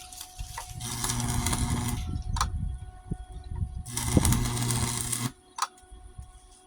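Arc welder laying two short welds on a steel Snapper mower deck: a crackling sizzle with a buzzing hum, each lasting about a second, with a sharp click after each one.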